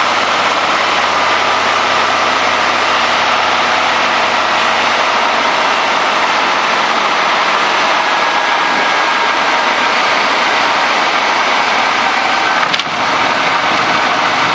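Cessna 210D's engine and propeller at low power with a steady rush of airflow during the landing flare. A low engine drone fades out about a third of the way in, and there is a brief knock near the end.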